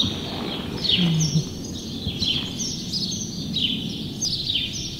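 Small birds chirping over and over, short high falling chirps about two a second, over a steady low rustling noise.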